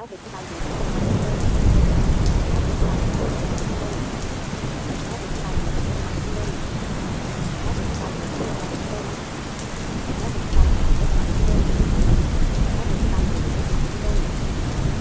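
Steady rain with rolling thunder, the low rumbles swelling about a second in and again at around ten seconds in.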